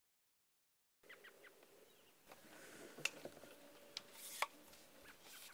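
Silence for about a second, then faint outdoor ambience with a few small bird chirps, two sharp clicks and a brief rustle.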